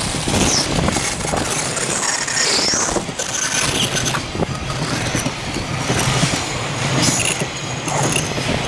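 A train passing over the level crossing, its wheels clattering on the rails, with brief high squeals now and then.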